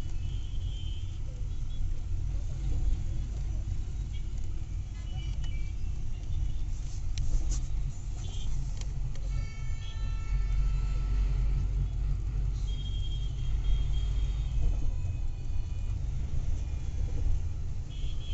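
Steady low rumble of a moving vehicle, heard from inside it, with horn toots from road traffic about halfway through.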